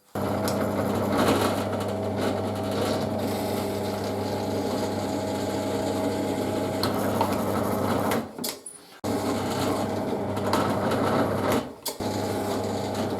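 Electric drill running, boring bolt-clearance holes through a wooden board. It runs steadily for about eight seconds, stops briefly, runs for about three more seconds, then pauses and starts again near the end.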